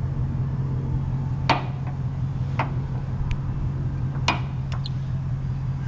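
Sharp metal clinks, about five, from a wrench working a brass glad hand fitting onto a truck's air line, over a steady low hum.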